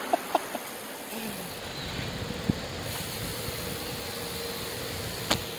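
Street traffic passing, heard from a moving bicycle: a steady rush of road noise with a few short sharp clicks.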